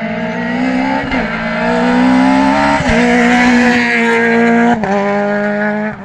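Rally car engine accelerating hard toward the listener, getting louder, its pitch climbing in each gear and dropping sharply at three quick upshifts, about a second, three seconds and five seconds in.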